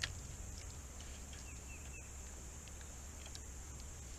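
Quiet lakeside ambience with a sharp click at the very start, a few faint ticks, and three short high chirps from a bird about a second and a half in.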